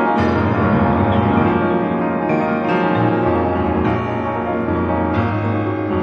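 Solo grand piano playing full sustained chords over low bass notes, with fresh chords struck several times.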